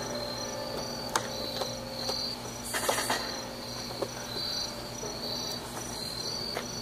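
Crickets chirping in a steady, regular pulsing rhythm, with a couple of sharp clicks and a short hiss about three seconds in.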